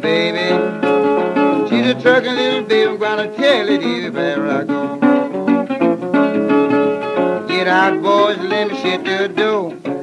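Instrumental break of a 1938 country blues 78 rpm record: guitar playing continuously, with notes that bend and slide in pitch.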